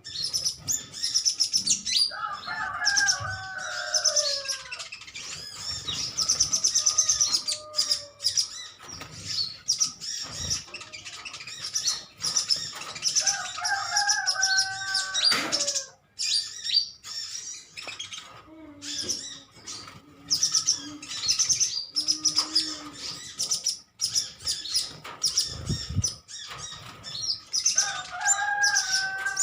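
Several metallic-green sunbirds chattering together in rapid, high-pitched twittering chirps with no let-up. A lower, falling call breaks in three times: about two seconds in, near the middle and near the end.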